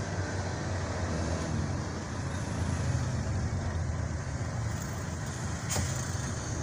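A vehicle's engine running steadily with road noise, heard from inside the cab, in slow traffic; a single sharp click about five and a half seconds in.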